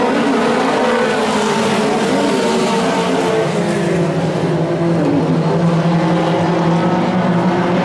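A pack of Pro 4 race trucks running at racing speed around an oval, several engine notes overlapping and wavering up and down as the trucks go through the turns and past.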